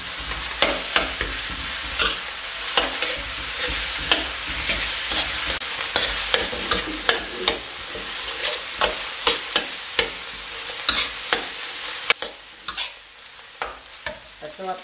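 Fried rice sizzling in a wok while a metal spatula stirs and tosses it, with repeated sharp clinks and scrapes of the spatula against the pan. The sizzle drops away near the end.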